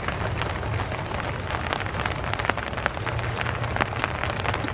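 Rain pattering steadily on a surface: a dense, irregular run of small ticks over a steady hiss.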